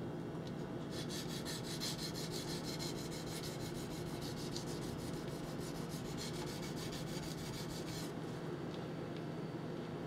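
Steel knife blade stroked rapidly back and forth on a 1200-grit whetstone, an even scraping rhythm of several strokes a second that stops about eight seconds in, over a steady low hum.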